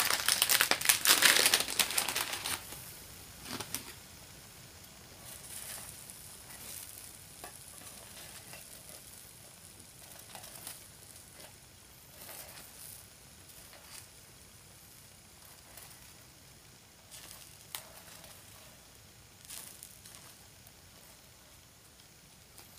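A crinkling rustle for the first two seconds or so, then takoyaki batter sizzling faintly in the wells of a Nichinen takoyaki hot plate, with short scrapes here and there as a bamboo skewer scores lines through the batter.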